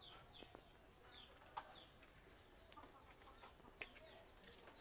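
Near silence with a faint steady cricket drone, and soft high peeps from a bird that fall in pitch and repeat about every half second. A couple of faint clicks come through as well.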